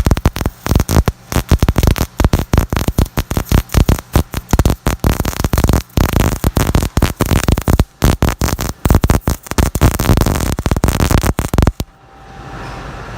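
MIG welding arc crackling and sputtering while a bead is laid along a T-joint, with many brief, irregular dropouts. The arc cuts off abruptly about 12 seconds in, leaving a quieter steady hum.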